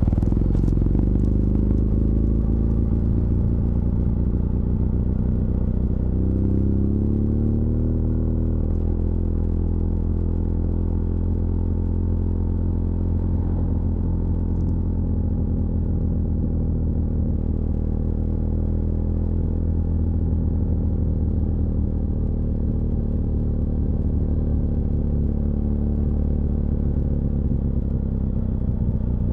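BMW R1200GS LC Adventure's liquid-cooled boxer twin running steadily on the move. About six seconds in the revs climb for two seconds, then drop sharply and settle back to an even note.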